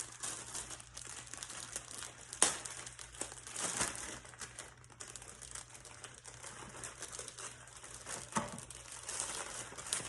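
Slime being squished and kneaded by hand: irregular sticky crackling and popping, with a sharp click about two and a half seconds in.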